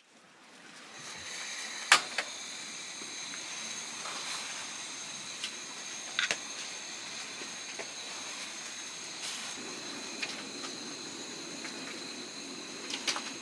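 Food sizzling in a pan over a camp stove: a steady hiss with a few sharp clicks of utensils against the pan.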